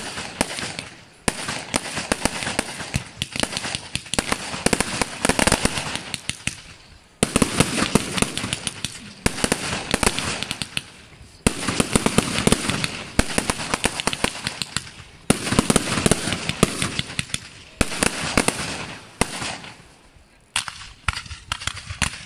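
Fireworks display: aerial shells bursting one after another, a new volley every few seconds. Each volley is a dense run of rapid crackling pops that fades away over a second or two.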